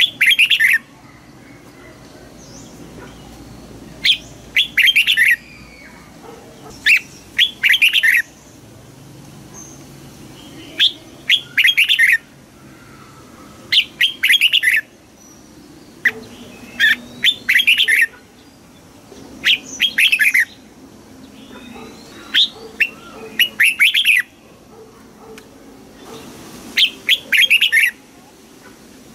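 Red-whiskered bulbul singing: loud, short phrases of several quick notes, repeated every two to three seconds.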